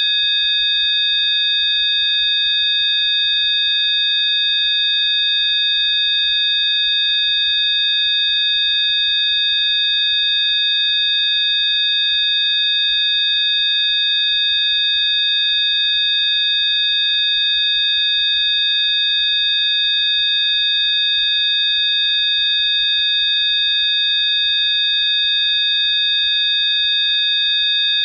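Rife frequency tone track: several steady, high electronic sine tones sounding together, unchanging in pitch and loudness.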